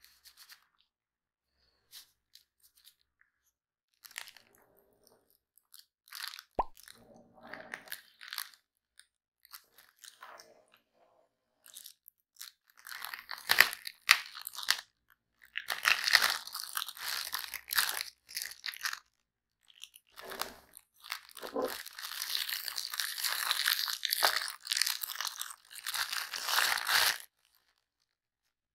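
Clear plastic wrapping on watch tins crinkling and crackling as gloved hands handle and unwrap it. It starts as scattered clicks and rustles with one sharp knock, then becomes a dense, continuous crinkle about halfway through.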